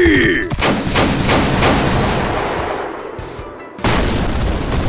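A volley of matchlock gunfire. A rapid string of shots comes in about half a second in and fades into a rumble over the next three seconds. A second sudden, heavy blast hits near the end.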